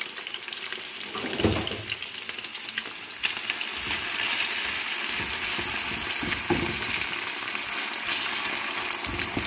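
Potato fingers sizzling as they fry in hot oil in a frying pan, a steady hiss that grows louder about three seconds in, with a few low knocks from handling in the pan.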